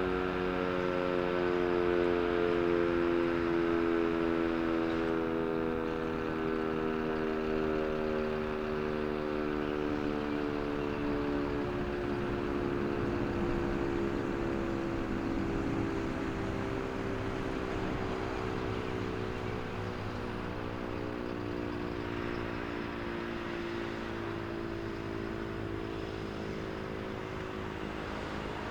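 Sentry 3V8-H single-phase outdoor warning siren winding down after a two-minute alert, its tone sliding slowly and steadily lower as it fades.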